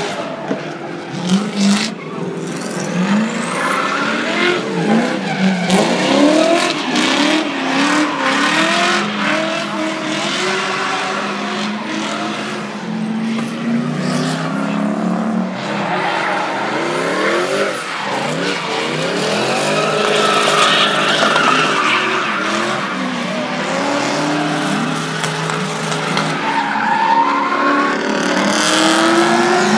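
Drift cars sliding under power: high-output engines revving up and down over and over, with tyres screeching.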